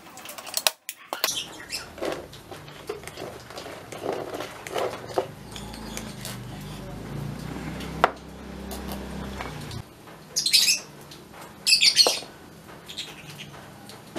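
Wooden toy crane parts knocking and clicking together as they are fitted by hand, with a sharp click about eight seconds in. A low steady hum runs underneath and stops shortly before two short, high scratchy bursts near the end.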